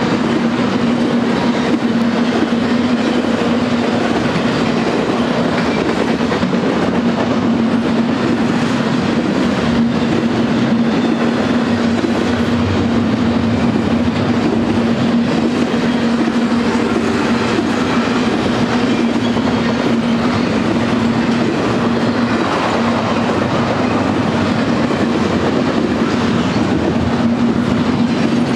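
Double-stack intermodal freight train's well cars rolling past at speed: a steady rumble of steel wheels on rail, with a steady low hum held through most of it.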